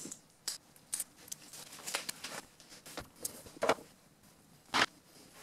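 Gloved hands laying strips of double-sided tape along the edges of a MacBook display glass panel: scattered light clicks and rustles of the tape and its backing, with a few sharper ticks, the loudest near the end.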